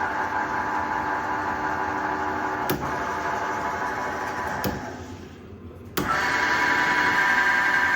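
Flott SBm3ST drill press running with a steady whine from its motor and stepless drive. It dies away about five seconds in, then starts again suddenly and louder about a second later. There are a couple of sharp clicks earlier on.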